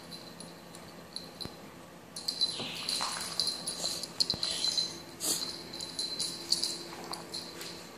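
Meerkat chittering: a rapid run of high chirps and clicks that starts about two seconds in, with a few short falling squeaks.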